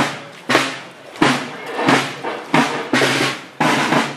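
Drums beating a steady march, one heavy stroke about every two-thirds of a second, each stroke trailing off briefly.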